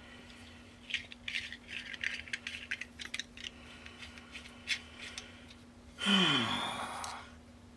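Irregular small clicks and rattles of objects being handled, then about six seconds in a brief groaning voice whose pitch falls. A steady low hum runs underneath, and no pulse-jet combustion is heard.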